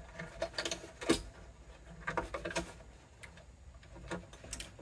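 Scattered light clicks and short rustles of an acoustic guitar and its freshly removed strings being handled, the sharpest click about a second in.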